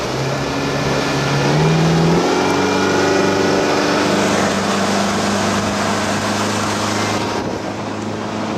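Speedboat's twin outboard motors revving up as the boat accelerates, rising in pitch for about two seconds, then running steadily at speed.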